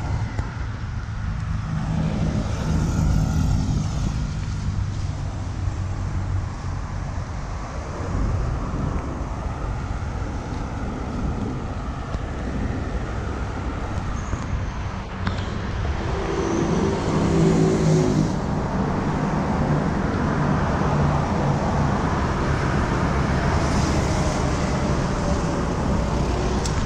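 Road traffic: cars driving past close by over a constant rumble, with engines passing loudest a few seconds in and again a little past the middle.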